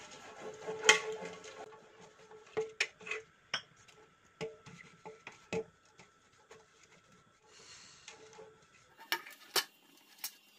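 Silicone pastry brush spreading butter around a metal cake tin, with scattered light clicks and knocks of brush and tin, the loudest about a second in and a quick run of them near the end.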